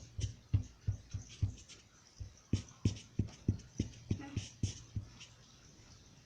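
Loudspeaker putting out a run of low thumps, about three a second, with a short break about two seconds in and a faint crackle on each thump.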